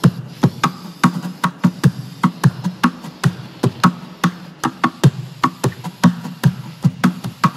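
Background music: a quick, even percussion beat of sharp taps over a low bass line.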